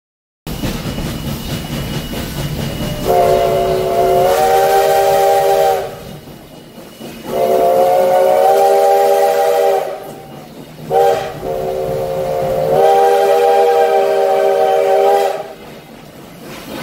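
Steam whistle of Virginia & Truckee No. 29, a 2-8-0 steam locomotive, sounding a chord of several notes in two long blasts, a short toot and a final long blast: the long-long-short-long grade-crossing signal. A steady low rumble sits under the first half.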